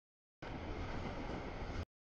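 Freight train of double-stack container cars rolling steadily past, a dense rumbling rush of wheels on rail. The audio drops out to dead silence for the first half second and again just before the end.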